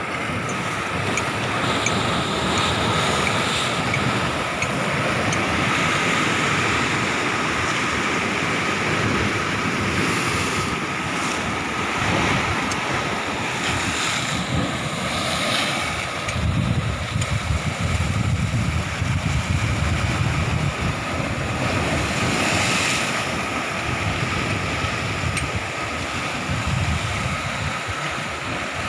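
Sea surf washing steadily, with wind buffeting the microphone in gusts, heaviest about halfway through.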